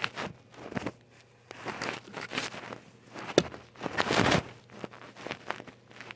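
Hands fiddling with a small plastic fidget toy while trying to fix it: irregular clicks, taps and rustling handling noises, with a louder stretch about four seconds in.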